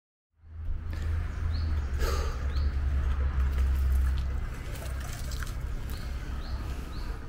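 Outdoor ambience: a low rumble, strongest for the first few seconds, with a few short rising bird chirps over it.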